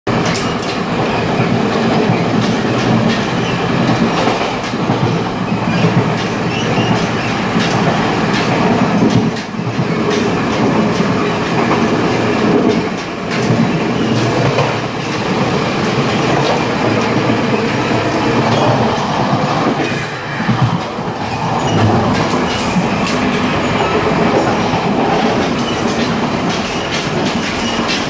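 Taiwan Railways Chu-Kuang Express carriage gangway at speed: loud, steady wheel-and-rail noise with clickety-clack and many sharp clanks and rattles from the joint between the two cars.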